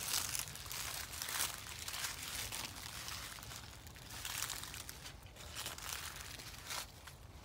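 Footsteps crunching through dry fallen leaves, an irregular crunch every half second or so, fading near the end.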